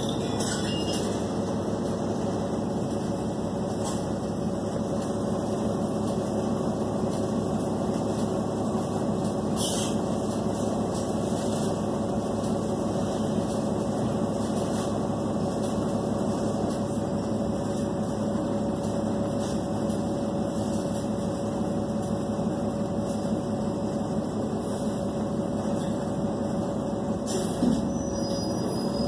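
City bus engine and cabin noise heard from inside the bus: a steady drone with a constant hum, a few faint clicks, and a short louder knock near the end.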